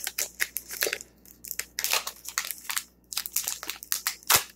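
Foil wrapper of a Pokémon trading-card booster pack crinkling as it is handled and opened: a quick, irregular run of sharp crackles with a couple of short pauses.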